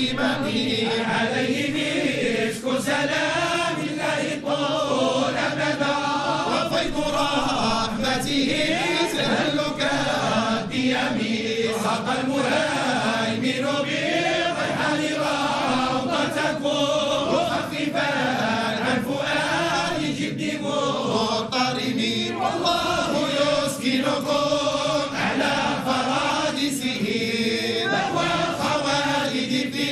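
A group of voices chanting Islamic religious verses together in unison, unaccompanied, in long melodic phrases that rise and fall.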